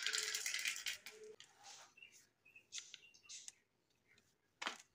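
A bunch of small plastic balls clattering together as they run down a plastic block marble run, a dense rattle that thins out after about a second into scattered clicks. A single sharp plastic click near the end as the toy pieces are handled.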